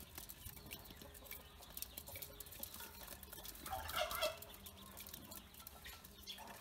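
A flock of Pekin ducklings peeping in a metal basin, with many faint clicks throughout and one louder burst of fowl calls about four seconds in.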